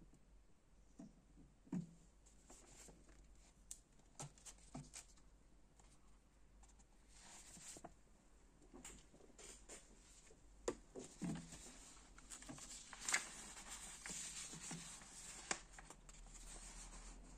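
Faint scattered clicks and light taps, then printed paper sheets rustling and crinkling under a hand for the last few seconds.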